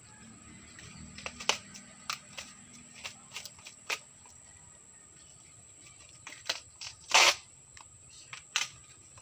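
Crisp snapping and cracking of a fresh banana trunk's sheaths being pried and peeled apart by hand: scattered sharp cracks, the loudest and longest one about seven seconds in.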